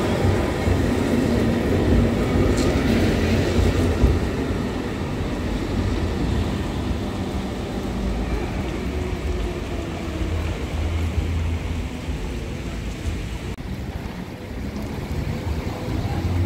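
Lowa ET54 tram train running on wet street track: a steady rumble of wheels on rail with a low hum, loud as it passes close, then quieter from farther off, growing louder again near the end as it comes closer.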